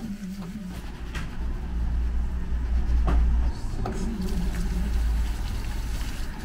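Hair being scrubbed with shampoo over a barbershop wash basin: a low rumble of rubbing through most of it, with a few sharp knocks. A brief wavering hum comes twice, near the start and about four seconds in.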